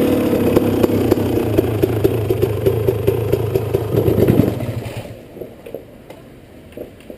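Dirt bike engine idling close by with a rapid, even beat, then stopping about four and a half seconds in, leaving only faint ticks and clatter.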